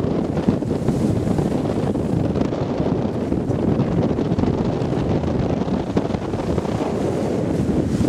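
Wind buffeting the microphone over water splashing and churning against the boat's side as a hooked blue marlin thrashes alongside.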